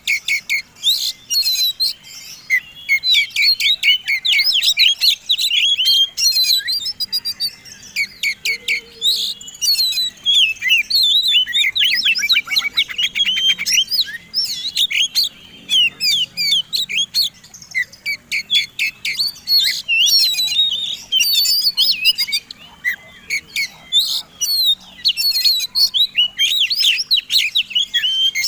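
Oriental magpie-robins (kacer) singing, several birds' songs combined: a dense, rapid run of high whistles, chatters and trills, with a fast rattling trill about twelve seconds in.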